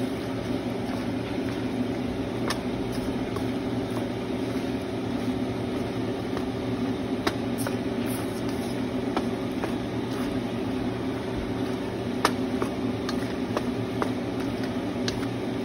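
Wooden spatula stirring pasta in a wok, with a few sharp knocks against the pan, over a steady mechanical hum like a fan.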